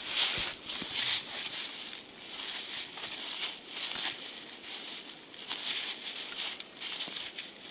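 Boots crunching and shuffling through dry leaf litter, twigs and snow in irregular steps, a crackly rustle every second or so.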